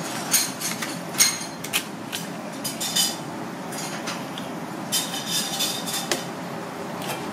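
A kitchen knife cutting through a scaled razorfish on a plastic cutting board: a string of sharp, ringing clicks and crunches as the blade works through scales and bone, over a steady kitchen background.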